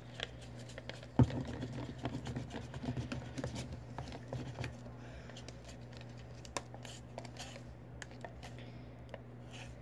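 A spoon stirring and scraping inside a plastic cup, mixing glue and dish soap into slime, with quick clicks and scrapes and one sharp knock about a second in.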